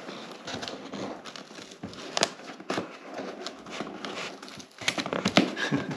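Cardboard box flaps being prised up by hand against the metal clips that hold them shut: scraping, crinkling cardboard with irregular sharp clicks, busier near the end.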